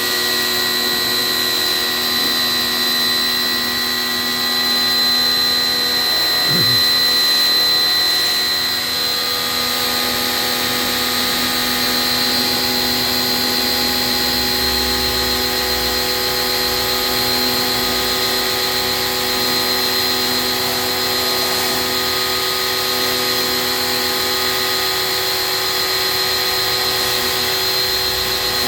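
Electric motor running steadily with a high-pitched whine.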